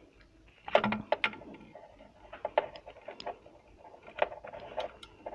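VGA cable plug being pushed and worked into the VGA port of a plastic TV tuner box by hand: a quick cluster of clicks and knocks about a second in, then scattered single clicks of plastic and metal handling.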